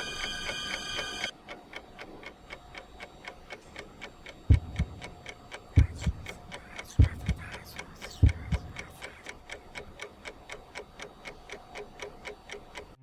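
A clock ticking steadily, about three ticks a second. A held electronic tone cuts off about a second in, and four heavy low double thumps, like a heartbeat, fall about a second and a quarter apart in the middle.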